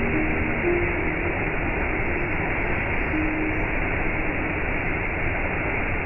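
Small waterfall pouring over a rock ledge onto stones in a shallow pool: a steady, even rush of falling water.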